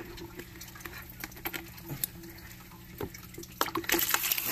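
Water dripping and sloshing in a plastic shipping bag and bowl as a stingray is handled, with scattered drips at first and a burst of splashing near the end.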